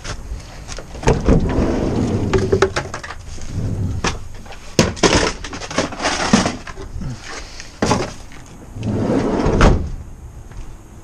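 Cardboard boxes and plastic packaging being handled and dropped into a car packed with items: rustling with a series of sharp knocks and clunks.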